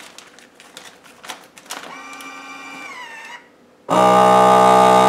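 Plastic bag rustling and clicking as it is fed into a FoodSaver vacuum sealer. A short motor whir then drops in pitch and stops. After a brief pause the sealer's vacuum pump runs loud and steady, sucking the air out of the bag, and cuts off suddenly near the end.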